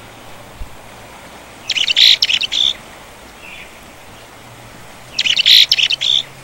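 A songbird singing two short, rapid phrases of high notes about three and a half seconds apart, over a faint steady hiss.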